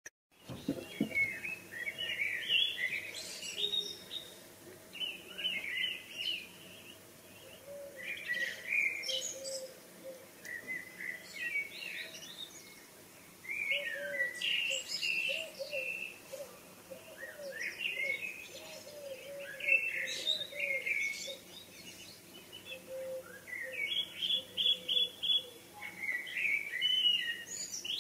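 Evening birdsong: several songbirds singing short, overlapping, warbling phrases, a new phrase every second or two.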